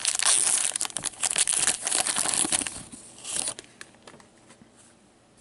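Plastic foil wrapper of a trading-card pack being torn open and crinkled in the hands for about three and a half seconds, then only faint card handling.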